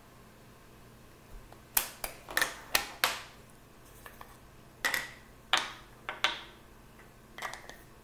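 Sharp plastic clicks and taps from handling a makeup powder container while trying to get more powder out of it. About five come quickly around two to three seconds in, then four more spaced out over the following seconds.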